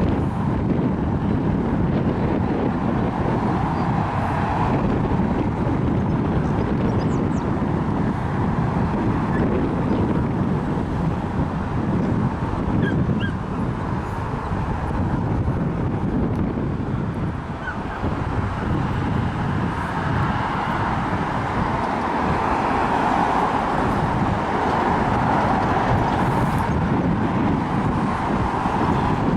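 Wind buffeting the microphone over the rumble of a train, which swells twice, briefly about four seconds in and for longer in the second half.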